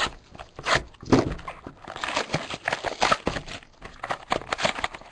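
Cardboard trading-card box and packs being opened and handled on a tabletop: an irregular run of taps, knocks and scrapes, with denser rustling in the middle.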